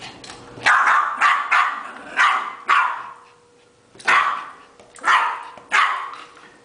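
Yorkshire terrier barking excitedly in play, short sharp barks: a quick string of about six in the first three seconds, then three more spaced about a second apart.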